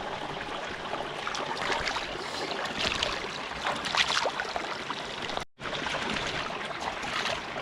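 Running water of a stream: a steady rush with irregular splashes. The sound cuts out for a moment about five and a half seconds in.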